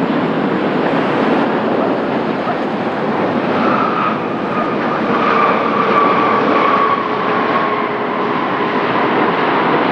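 Jet airliner's engines, a loud steady rush with a faint whine that sinks slowly in pitch from about the middle on as the plane passes.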